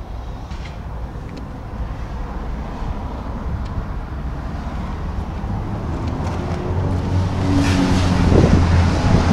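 Steady low rumble of a motor vehicle, with a little wind on the microphone, growing louder over the last few seconds.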